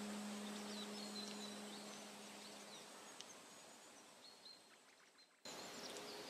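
Faint relaxation soundscape: a sustained singing-bowl-like tone fades away over the first few seconds, leaving a thin outdoor hiss with short high bird chirps. The sound sinks almost to silence, then cuts abruptly back to hiss and chirps about five and a half seconds in.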